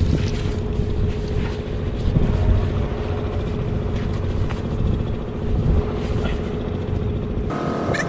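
A steady low rumble with a steady motor hum running under it. A second, higher engine tone joins near the end.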